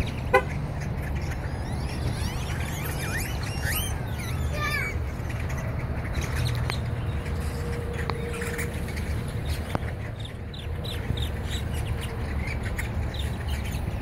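A flock of great-tailed grackles calling: rising whistles in the first few seconds, then a run of short, sharp calls, over a steady low rumble of traffic.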